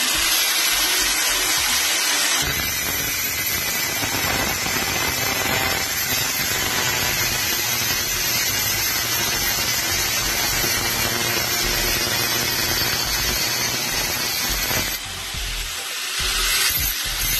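Handheld angle grinder running, its spinning disc grinding against a steel rod held in locking pliers, with a steady hissing screech. It eases off briefly about fifteen seconds in, then bites again.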